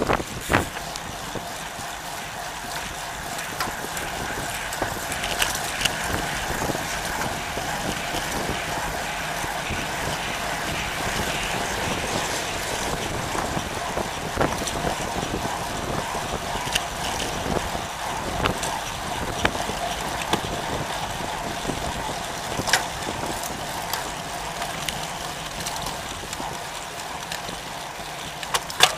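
Road bike riding in a group on asphalt: steady tyre and road noise heard through a camera mounted on the bike, with scattered short clicks.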